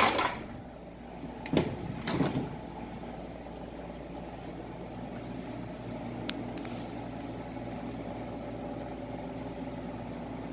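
Room air conditioner running with a steady hum. Two short knocks sound about two seconds in.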